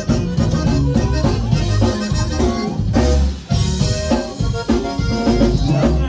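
A live conjunto band playing dance music: a button accordion melody over bass and a drum kit beat, with a brief dip in loudness about halfway through.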